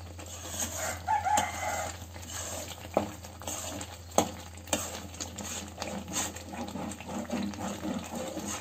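Steel ladle stirring and scraping thick, simmering milk cream in a stainless steel pan, with sharp clinks of metal on metal about three and four seconds in, as ghee separates from the milk solids. A light sizzle runs under the stirring. A brief pitched call sounds in the background about a second in.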